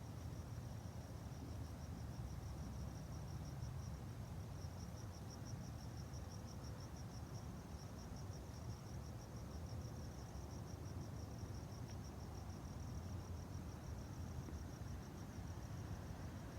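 Crickets chirping in a steady, rapid pulsing trill, over a low background rumble.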